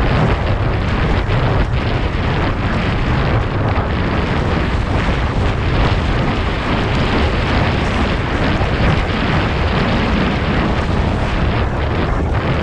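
Heavy wind buffeting on a camera microphone carried on a horse moving at speed, a steady loud rumble.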